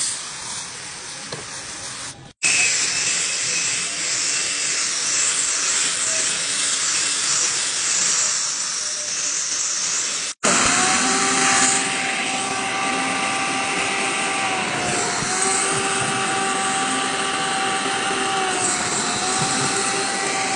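A softer hiss for the first two seconds, then a cordless drill spinning a scrub brush against a carpet floor mat for about eight seconds. After a cut, a Better Extractor carpet extractor runs with a steady rushing suction and a whine, the wand drawing cleaner and water out of the mat; the whine dips briefly twice.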